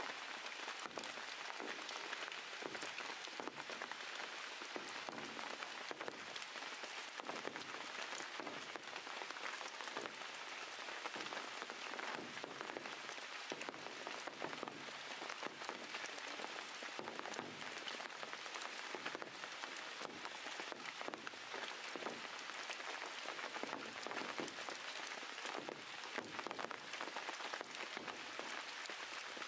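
Steady rain with a dense patter of drops.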